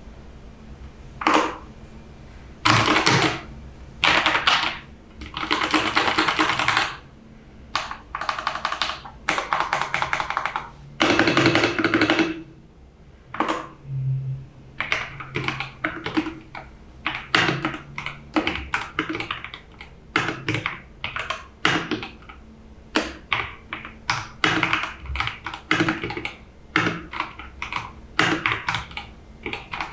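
Typing on an EPOMAKER TH80 mechanical keyboard: for the first half, fast runs of keystrokes in bursts of half a second to a second and a half; after that, single keys pressed one at a time, about one to three clicks a second.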